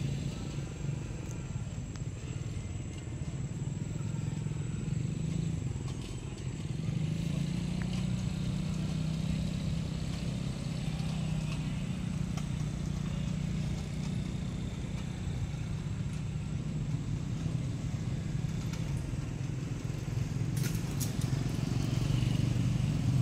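Steady low hum of an engine running, even in level, with a few sharp clicks about twenty seconds in.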